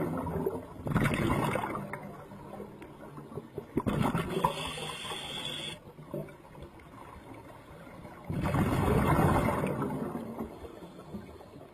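Water gurgling and rushing, swelling up in surges a few seconds apart between quieter stretches.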